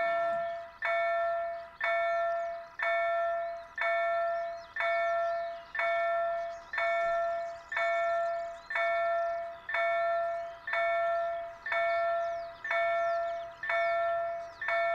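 Level-crossing warning bell striking at an even pace of about one stroke a second, each stroke ringing out and fading before the next. It sounds with the barriers down and the red lights flashing, the warning that a train is approaching.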